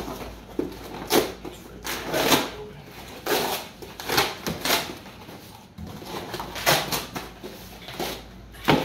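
Cardboard packaging being handled and opened: a string of short, irregular scrapes and rustles as a small box holding the radio transmitter is pulled open and its contents lifted out.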